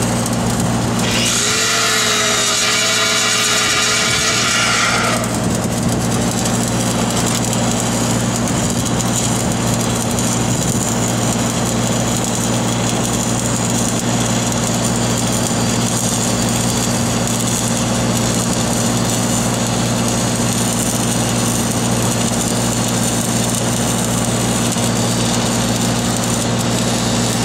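Stick-welding arc crackling and hissing steadily over the constant hum of an engine-driven welding machine. About a second in, a power tool whines over it for roughly four seconds, then stops.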